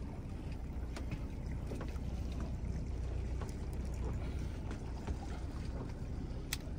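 Fishing boat running slowly under its outboard motor: a steady low rumble of motor and water, with a few faint scattered clicks.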